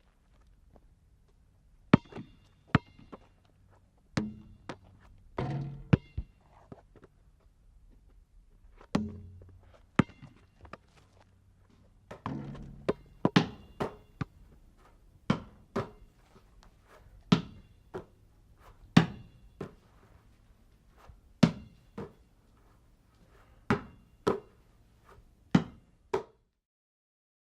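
Objects being handled, moved and set down: a series of irregularly spaced thuds and knocks, some followed by short scraping or rumbling, ending abruptly about a second before the end.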